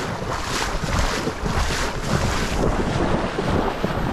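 People wading fast through shallow marsh water, sloshing and splashing with each stride about twice a second, with wind buffeting the microphone.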